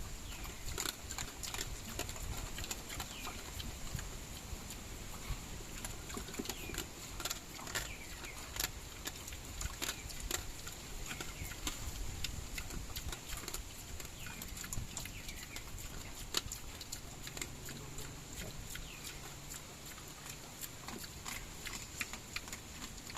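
Native pigs chewing bananas: wet crunching and smacking, heard as many short irregular clicks. A steady high-pitched hiss runs behind them.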